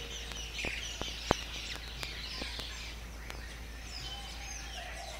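Birds chirping and twittering over a steady low hum, with a few sharp clicks scattered through, the loudest about a second in.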